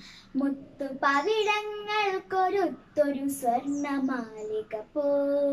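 A young girl singing a Malayalam poem unaccompanied: a melodic recitation in short phrases with long held notes.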